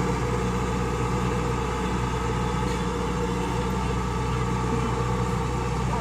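Rice combine harvester's engine running steadily at an even pitch.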